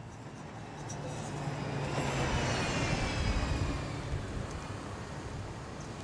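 TriMet city bus driving past close by: its engine and tyre noise swells to its loudest about two to three seconds in, with a faint falling whine, then fades away.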